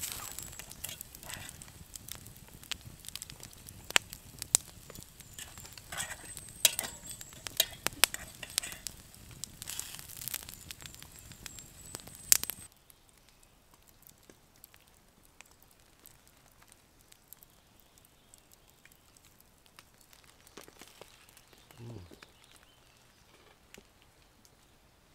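Bacon sizzling in a steel frying pan over a campfire, with frequent sharp pops and crackles from the fire and pan. About halfway through it cuts off suddenly to a much quieter forest background with only faint small sounds.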